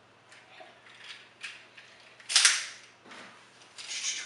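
Clicks and clacks of a plastic Transformers toy being handled and worked, with one loud, sharp crack about halfway through and a short rattling clatter near the end.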